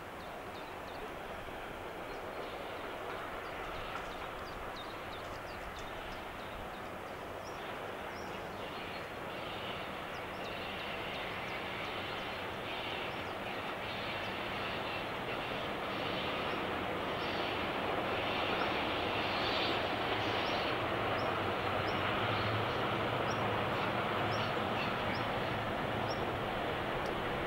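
Class 749 'Bardotka' diesel locomotive approaching from a distance, its engine drone growing steadily louder.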